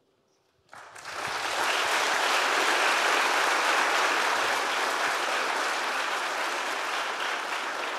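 Audience applauding. It starts suddenly about a second in and holds steady.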